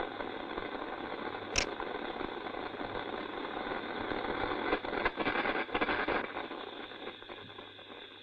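Thermite rail-welding charge burning in its crucible: a steady hissing, crackling rush with one sharp crack about a second and a half in. It swells louder around five to six seconds, then dies away near the end.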